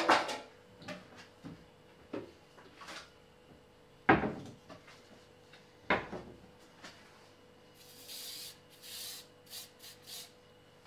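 A few sharp knocks of bread tins and kitchen things being handled: the loudest right at the start, then two more about four and six seconds in. Near the end come several short hisses in quick succession from an aerosol can of non-stick cooking spray.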